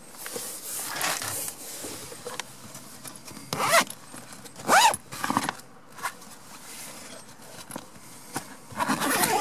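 Zip on the canvas pop-top roof's window flap being pulled along in several separate quick pulls, each a short rasp.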